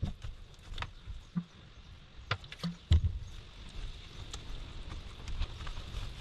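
A wooden stick stirring thick white paste in a small plastic tub, knocking and scraping against the plastic in scattered, irregular clicks, the loudest about three seconds in.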